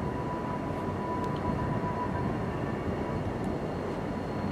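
Distant EMD diesel freight locomotives running as they approach, heard as a steady rumble with a thin high whine that fades about halfway through.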